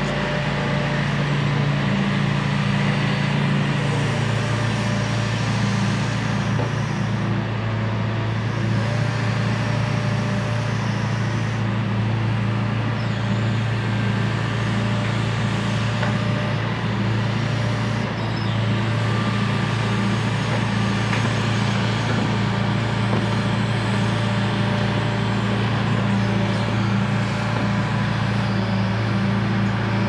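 Hitachi Zaxis 170W wheeled excavator's diesel engine running steadily under working load as the boom and bucket move, a constant low engine hum with hydraulic working noise.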